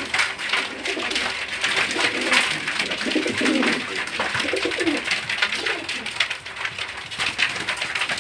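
A flock of domestic pigeons cooing in a loft, several low coos overlapping, strongest in the middle of the stretch, over a constant busy patter of small clicks and rustles from the birds moving about on cardboard.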